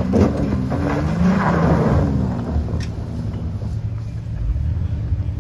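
Honda Pilot's 3.5-litre V6 revving hard in first gear with the VTM-4 rear lock engaged as it claws up a steep ledge of loose dirt and rock, tyres scrabbling and spraying dirt. The revs climb over the first second or two, then ease off and hold.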